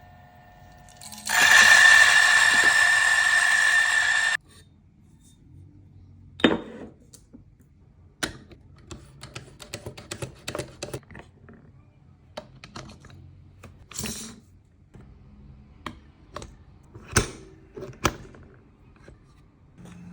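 Espresso equipment in use: a loud motor runs with a steady whine for about three seconds, then come scattered clicks, taps and knocks of metal parts being handled, over a faint low hum.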